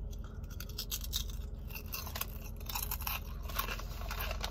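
Someone crunching and chewing a mesquite barbecue potato chip: a run of irregular crisp crunches.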